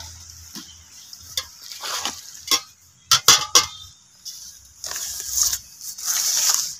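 Metal kitchenware knocking and clinking as wheat flour is tipped from a steel tin into an aluminium pot. A few sharp clanks come about three seconds in, and a rustling hiss follows near the end.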